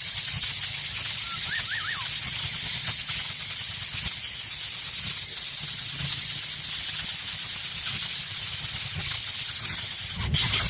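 A steady high-pitched hiss runs throughout. About one and a half seconds in come three quick whistled notes, each rising and falling.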